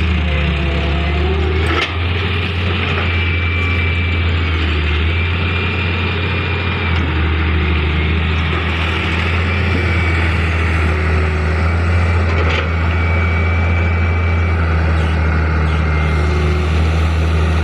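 Diesel engine of heavy earthmoving equipment running steadily, with a faint high whine that comes and goes. Two sharp knocks, about two seconds in and again later.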